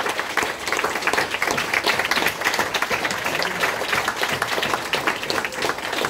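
Audience applauding: dense, steady hand-clapping from many people, with one pair of hands clapping close by.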